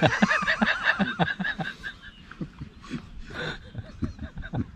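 Several men laughing at a joke, a burst of rhythmic laughter at first that trails off into scattered chuckles.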